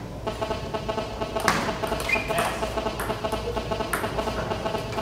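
Table tennis ball strikes during a rally: a few sharp clicks, the loudest about a second and a half in, with a brief squeak just after two seconds and a steady hum underneath.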